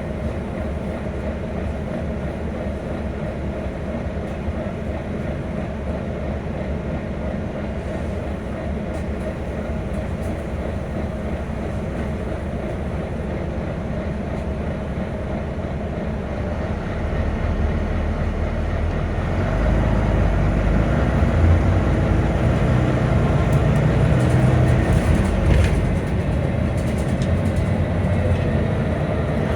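A Volvo B9TL double-decker bus running, a steady mechanical drone that grows louder and deeper about two-thirds of the way through.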